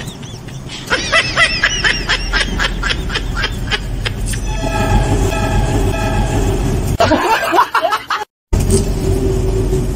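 Edited-in comedy sound effects. First comes a rapid, high-pitched cackling laugh for about three seconds. Then a held horn-like chord, a quick run of squeals, a split-second cut to silence, and a long low horn-like blare, all over a steady low hum.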